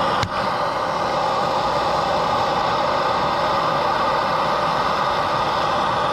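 Handheld gas torch burning with a steady rushing hiss, heating a rust-seized nut so that expansion and contraction break the rust bond.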